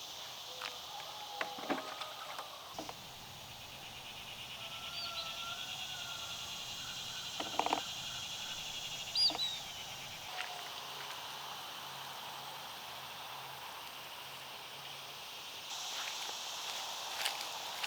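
Late-summer garden ambience: insects trilling steadily, with a fast pulsing trill for several seconds, a few short bird chirps, and occasional light clicks.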